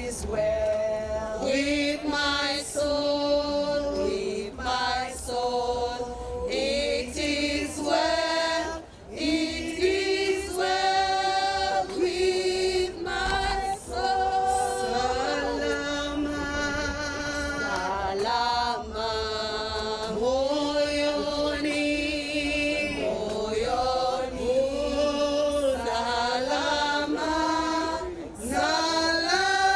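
A small group of women singing a song together in chorus, unaccompanied, one voice carried through a handheld microphone.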